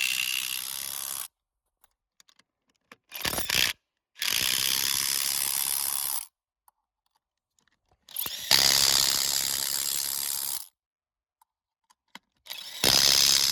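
RIDGID 18V brushless subcompact half-inch impact wrench hammering on lug nuts to tighten them, in separate runs of about two seconds with a short blip in between.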